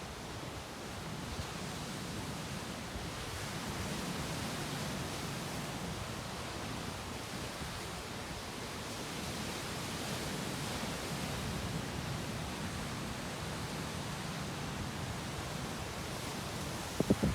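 Steady wash of sea waves breaking on a beach and against rocks, swelling and easing gently, with two brief sharp thumps just before the end.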